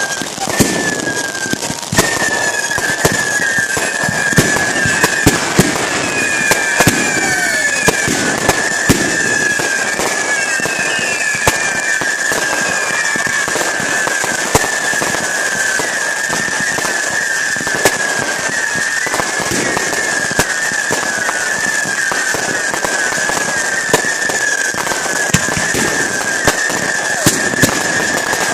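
Fireworks going off: a rapid, continuous run of sharp bangs and crackling pops, with a high wavering whistle running underneath.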